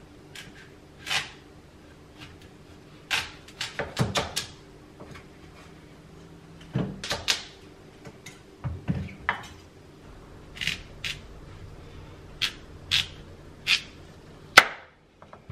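Chef's knife cutting through a kabocha squash on a wooden cutting board: irregular crunches as the blade goes through the hard rind and flesh, and knocks as it meets the board, the loudest near the end.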